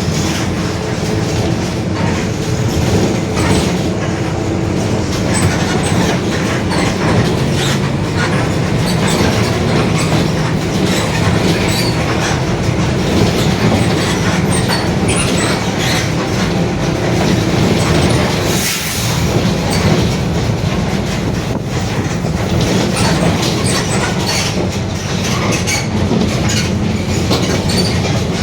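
Mercedes-Benz OF-1721 BlueTec 5 bus under way: the diesel engine runs steadily under a growling differential, with body and fittings rattling. A short hiss comes about 19 seconds in.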